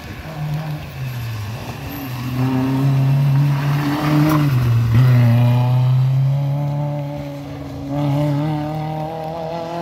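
Rally car engine working through a tight hairpin. The revs drop and climb several times as it slows and turns in, loudest as it passes through the bend about four to five seconds in, then rising again as it accelerates out.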